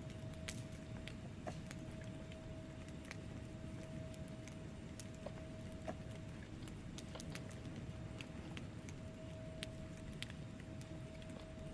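Log fire burning in a fireplace: irregular sharp crackles and pops over a steady low rumble of flame. A faint steady tone runs underneath.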